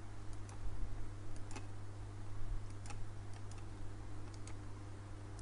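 Computer mouse clicking: about a dozen sharp, irregularly spaced clicks while CAD objects are being selected, over a steady low hum.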